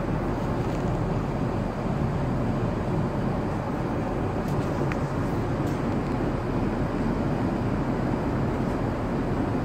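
Steady, even rushing air noise with a low hum underneath, the sound of an airliner cabin's air-conditioning and ventilation.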